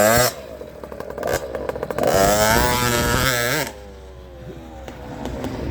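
Small off-road engine running quietly, then revving hard about two seconds in, its pitch climbing and wavering, before it drops back off the throttle about three and a half seconds in.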